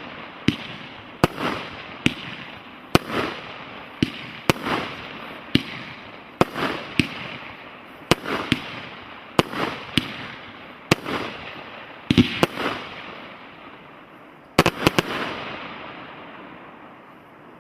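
A 36-shot 'Blue Bird' aerial fireworks cake firing its shots in sequence: a sharp bang every half second to a second, each trailing off in a noisy tail. A last cluster of bangs comes near the end, then the noise dies away.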